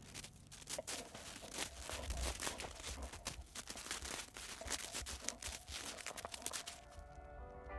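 A golden retriever digging at packed snow with her front paws: quick, irregular crunching and scraping. Music comes in faintly near the end.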